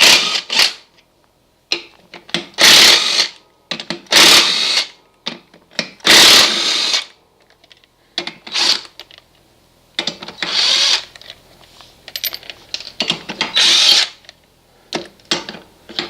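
Impact gun with a 21 mm socket run in short bursts, about seven of them, each under a second with pauses between, loosening the nuts to take a mower wheel assembly off.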